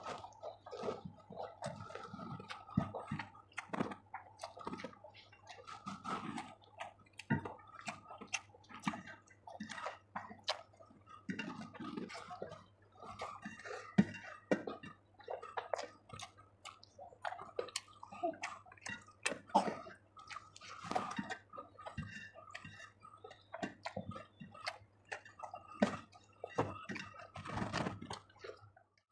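Close-miked eating sounds: a person chewing chicken curry and rice, with many short, irregular wet smacks and clicks.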